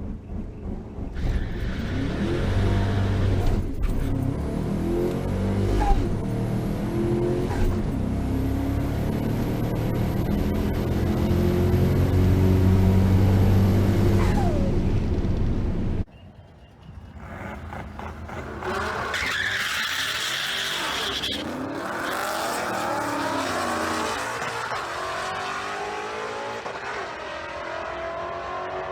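Twin-turbocharged 351 Windsor V8 of a Ford Ranger launching hard and accelerating down the drag strip. The engine's pitch climbs and then drops at each gear change through the manual gearbox. About sixteen seconds in the sound cuts off suddenly and gives way to engine noise whose pitch sweeps up and down.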